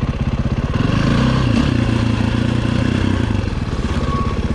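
2011 KTM 530 EXC's single-cylinder four-stroke engine running at low speed with an even, rapid firing beat. It picks up a little throttle about a second in and eases back off after about three and a half seconds.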